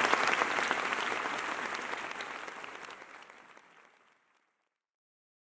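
A large auditorium audience applauding, the applause fading out over about four seconds.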